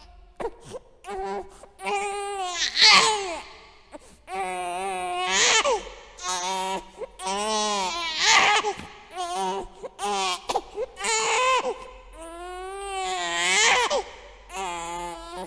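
A baby crying: a string of wailing cries, each one to two seconds long, with a wavering pitch and short broken gasps between them.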